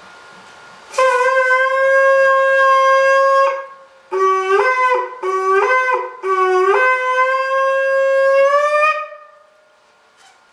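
A ram's horn shofar being blown: one long steady blast, then three short broken blasts that each step up from a lower note to a higher one, then another long blast that sags slightly in pitch as it fades.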